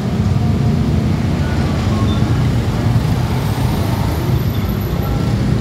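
Road traffic: a diesel dump truck's engine running as it pulls away, with motorcycles riding past close by, a steady low rumble throughout.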